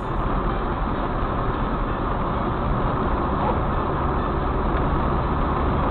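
A car driving along, heard from inside the cabin through a dashcam microphone: steady engine and road noise with a low hum.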